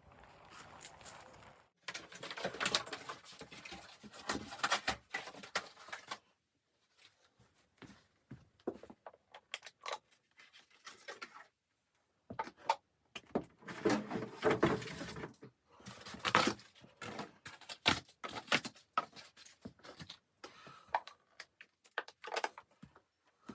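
Irregular handling noises in a small room: sharp clicks and knocks mixed with rustling, coming in several bursts with silent gaps between them.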